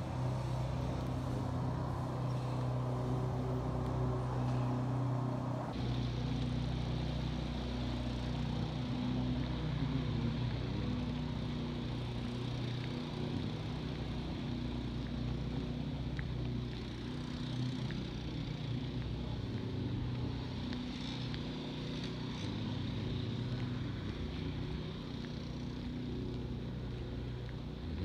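Steady low hum of running machinery, a constant drone over a hiss; about six seconds in the hiss changes abruptly.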